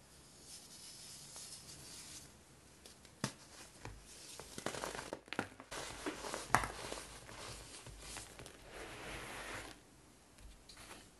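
A pressed baking soda cake crushed between bare hands: a sharp crack about three seconds in, then a run of dry crunches and cracks as it breaks apart, the loudest a little past the middle, followed by a soft hiss of crumbled powder trickling down.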